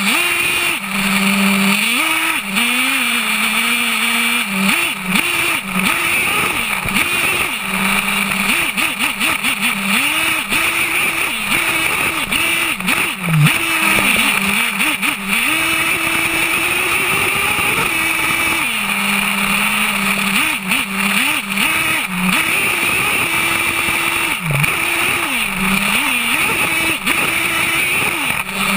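HPI Savage X 4.6 nitro RC monster truck's small two-stroke glow engine, heard from a camera mounted on the truck. It revs up and down in quick pitch swings, holds a higher steady pitch for a couple of seconds past the middle, and drops back to a steady idle now and then.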